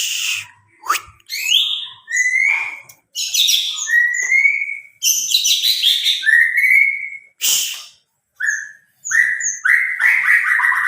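White-rumped shama (murai batu) singing: varied phrases of rising whistles, high sharp notes and rapid chattering notes, with short pauses between phrases.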